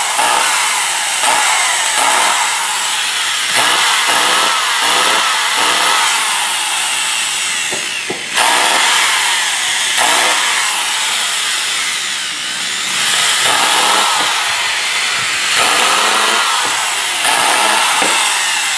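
Makita 3/4-inch hammer drill's motor running at speed, its pitch wavering and dipping briefly about eight seconds in. This is a test run after the commutator was cleaned to cure heavy brush sparking: the brushes still spark, though the motor no longer smells bad.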